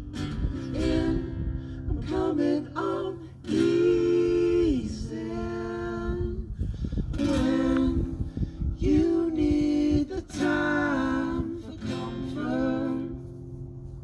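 Live acoustic folk music: acoustic guitar and mandolin strumming under three voices singing held notes in harmony. The singing stops about a second before the end, leaving the strings ringing.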